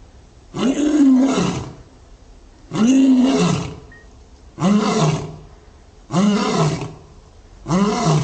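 Adult male lion roaring in a series of loud calls, each rising and then falling in pitch. The calls come about every two seconds, grow slightly shorter and closer together, and a fifth begins near the end.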